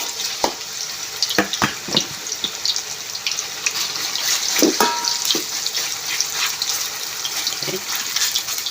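Marinated chicken breast pieces frying in hot oil in a wok: a steady sizzle with crackling spatters, and a few knocks as pieces go into the pan.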